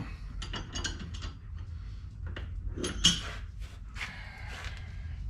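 Metal clicks and knocks of a Ford 9-inch differential's pinion support being handled and seated in the center section, with a louder clank about three seconds in and a short scrape near the end.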